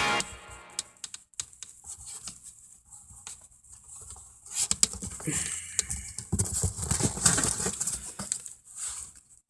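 Scattered clicks and rustling from hands handling electrical wires and tools, sparse at first and busier in the second half. A music track cuts off right at the start.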